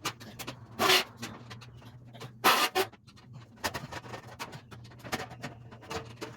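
Small clicks and knocks from grill parts being handled and screwed together by hand, with two brief louder bursts of noise about one second and two and a half seconds in, over a steady low hum.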